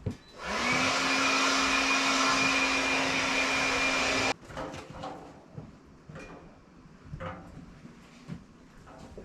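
A small motor with a rush of air spins up about half a second in, holds a steady hum for about four seconds, then cuts off suddenly. A few faint knocks follow.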